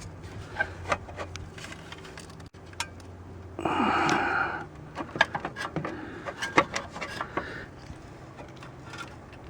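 Scattered sharp clicks and knocks of metal parts and tools being handled while a clutch slave cylinder is worked back into place. A brief voiced grunt or mutter lasts about a second, about four seconds in.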